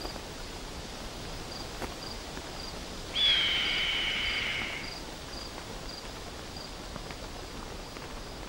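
A red-tailed hawk gives one hoarse, drawn-out scream, slightly falling in pitch and about a second and a half long, starting about three seconds in. Behind it, faint insect chirping repeats steadily about twice a second.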